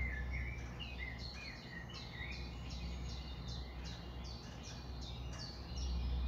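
Nature ambience of small birds chirping: short notes repeated several times a second, many of them dropping in pitch, over a steady low rumble.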